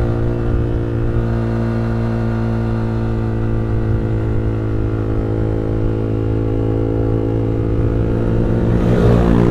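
Yamaha R15 single-cylinder motorcycle engine running at a steady speed, heard from the bike while riding. The pitch holds even, then begins to shift near the end.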